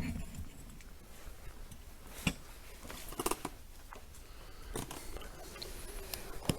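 Faint scattered clicks and light rustling, with a handful of short, sharp ticks spread through a quiet background.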